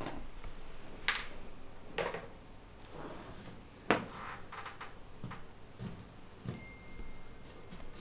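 Scattered clicks and knocks of handling as a bullet CCTV camera and its cable are fed through a hole in a suspended ceiling tile, the sharpest knock about four seconds in. A faint thin high tone sounds through the last second and a half.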